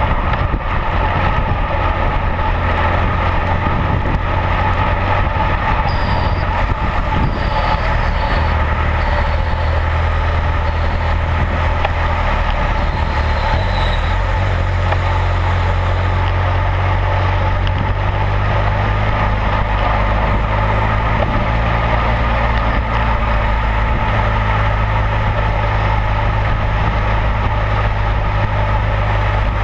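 Steady engine drone of a motorcycle riding right alongside, over constant wind and road rush from a racing bicycle moving at speed. The engine's low note shifts in pitch a few times as it changes speed.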